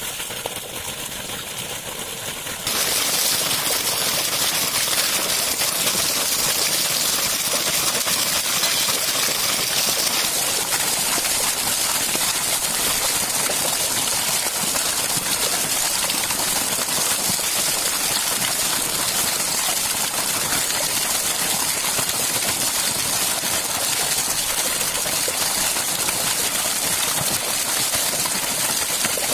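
Water gushing hard from an irrigation pipe outlet and splashing down onto the ground, a steady loud rush that gets louder about three seconds in.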